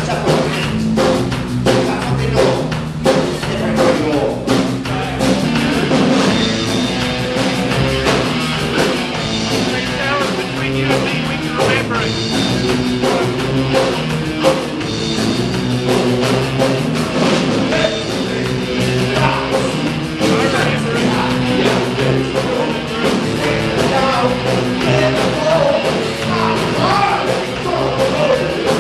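Live rock band playing: electric guitar through an amplifier, with bass guitar and a drum kit.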